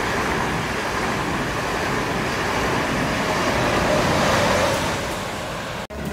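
Passenger train passing close by at speed: a steady loud rushing of wheels on rails and moving air. It swells slightly, eases near the end, then breaks off abruptly just before six seconds.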